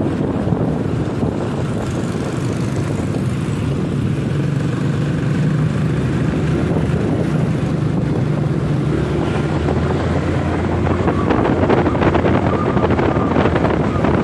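Wind rushing over the microphone of a moving motorcycle, with the motorcycle's engine running underneath as a steady drone.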